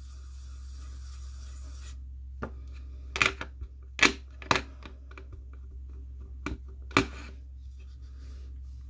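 A small pad rubbed briskly over cardstock to clean the grease off it, a soft scratchy rubbing lasting about two seconds. A clear acrylic stamp block then knocks against an ink pad as it is inked, about five sharp clicks and taps spread over the next few seconds, over a steady low hum.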